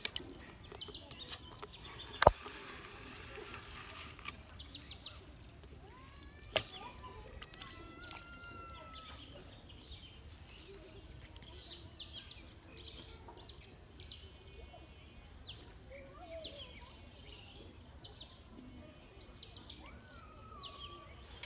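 Small birds chirping and calling on and off over a low steady outdoor background. A sharp knock about two seconds in is the loudest sound, and a smaller one comes near seven seconds.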